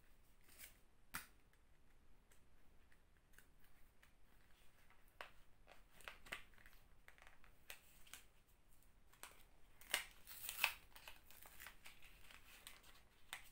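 Faint handling of small packaging being opened by hand: scattered clicks and crinkles of plastic and paper, with two louder crinkles about ten seconds in.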